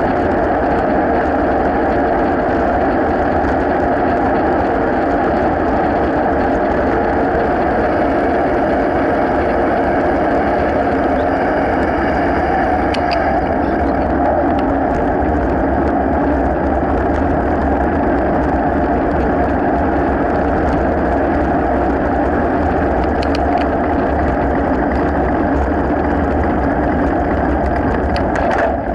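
Steady rush of wind and tyre noise on the microphone of a camera riding on a bicycle over asphalt, with a few faint ticks.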